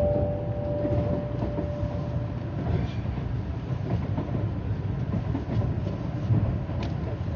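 Cabin noise inside an N700A Shinkansen car: a steady low rumble of the running train with scattered faint clicks. The last note of the onboard chime rings on and dies away about two seconds in.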